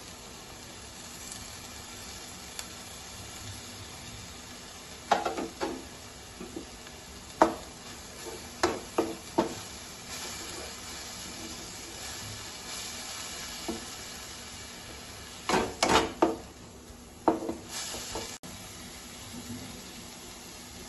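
Chopped mustard greens frying in a coated wok while a wooden spatula stirs and scrapes them against the pan, over a steady sizzle. The scraping strokes come in clusters, about a quarter of the way in and again after the middle.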